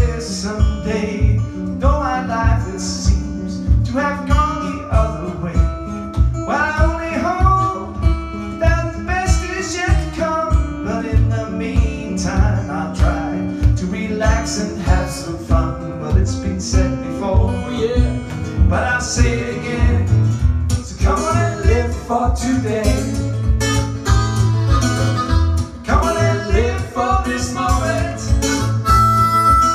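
Live acoustic blues-country song: strummed acoustic guitar with a steady beat of about two a second and a man singing.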